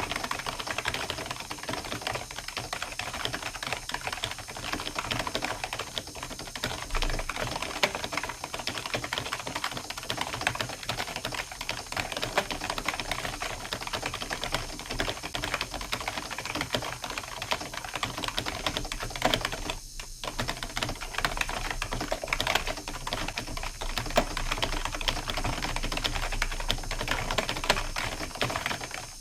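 Continuous fast typing on a computer keyboard, a dense run of key clicks with one brief pause about two-thirds of the way through.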